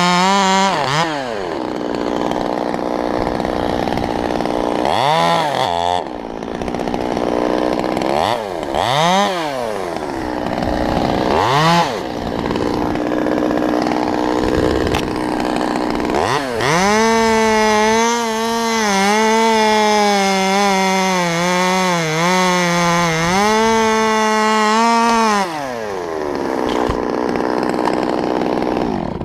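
Stihl MS200T top-handle chainsaw at full throttle, dropping to idle about a second in, then revved briefly several times before a long full-throttle cut of about nine seconds through cottonwood, its pitch dipping and recovering as the chain bites, then falling back toward idle near the end.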